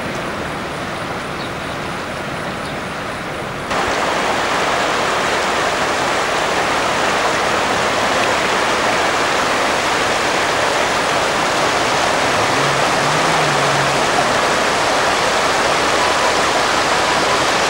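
Floodwater rushing steadily, with a sudden step up in loudness about four seconds in.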